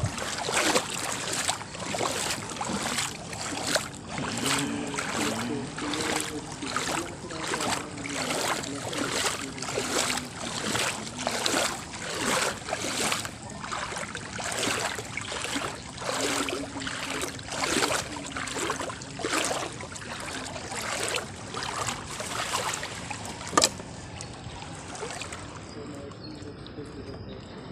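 Water splashing in a steady rhythm, about three splashes every two seconds, as a small outrigger boat (bangka) moves out over the sea. A single sharp knock comes near the end, after which the splashing stops.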